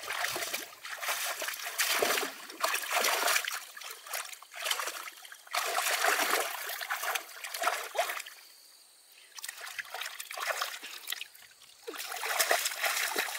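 Water splashing and trickling in irregular bursts, with a quieter lull about two-thirds of the way through.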